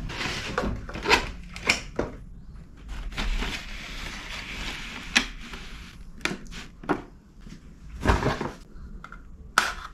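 Paper carrier bag rustling and a clear plastic cake container being lifted out and set down on a wooden table: a series of sharp knocks and plastic clicks with crinkling between them.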